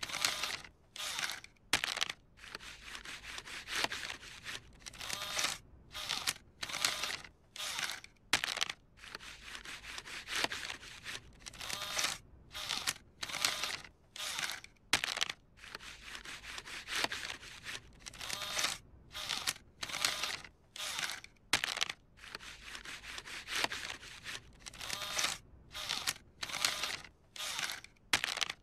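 Bill acceptor on a coin-operated kiddie ride whirring in short rasping bursts, over and over, as it draws a dollar bill in and pushes it back out: the crumpled bill is being rejected.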